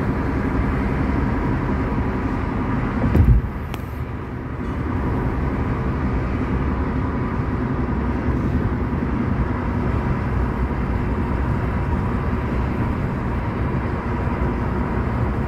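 Steady road and engine noise inside a moving car's cabin, with a brief loud low thump about three seconds in, after which the noise drops slightly for a second or so.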